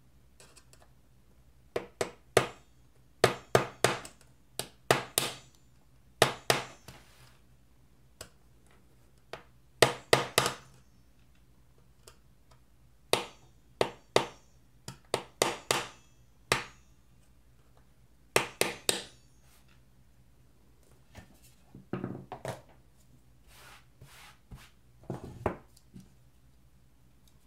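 Locking pliers clamping and wrenching rivets out of a 2015 MacBook Pro's aluminium top case, giving sharp metallic clicks and snaps in clusters of two to four every second or two. Softer, duller knocks come near the end.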